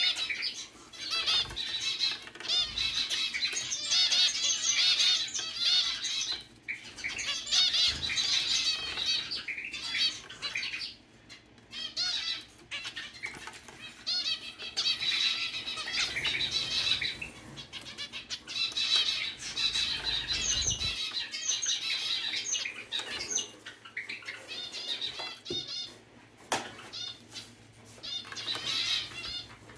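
Zebra finches bathing in a pet water fountain: wings beating and splashing in the water, mixed with the birds' short, repeated chirping calls that come and go in stretches.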